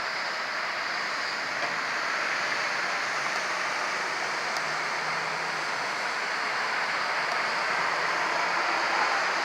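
Steady road traffic noise with trucks, an even rushing hiss without a clear siren tone.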